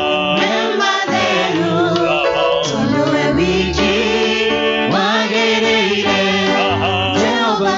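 Live gospel worship song: several voices singing into microphones over an electric bass guitar, with wavering sung melody lines over steady bass notes.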